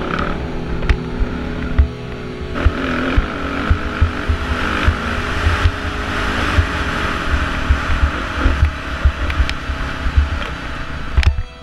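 Dirt bike engine running under load on a rough trail, with frequent low thumps of wind buffeting the helmet-mounted microphone.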